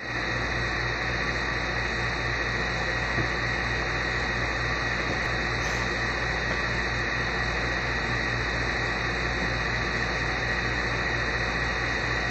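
Window air conditioner running: a steady hum and rushing noise with a low throb that pulses several times a second, unchanging throughout.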